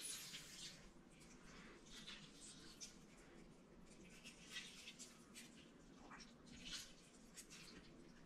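Faint, irregular squelches and rustles of a lemon half being squeezed by hand and its juice spread over a bamboo cutting board.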